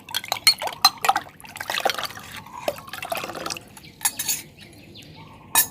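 A dissolved mixture being poured into a container of water, splashing and filling, with sharp clinks and knocks of the containers.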